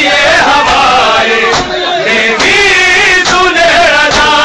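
A crowd of men chanting a Punjabi noha, a Muharram lament, loudly and together, their voices rising and falling in a sung melody.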